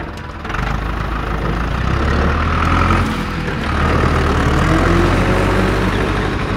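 A short click, then a heavy truck's diesel engine running steadily with a deep rumble, dubbed in as a sound effect for the toy tow truck.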